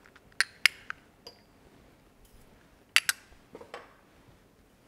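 Small glass spice bowls clinking against a glass mixing bowl as spices are tipped in. There are sharp clinks in two pairs, one near the start and one about three seconds in, with a few softer taps between and after.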